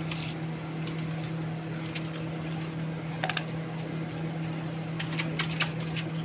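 A steady low hum with scattered short, sharp clicks, a quick run of them about five seconds in.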